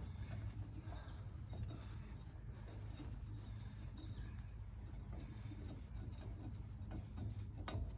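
Crickets chirping steadily in the background, a continuous high trill, over a low hum, with a few faint knocks and rustles from parts being handled and wiped.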